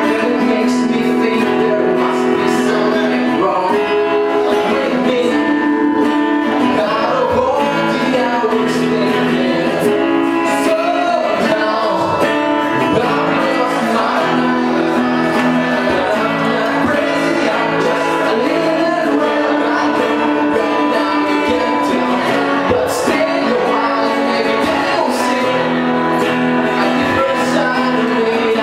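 Live band playing a song with a singer and guitar, steady level.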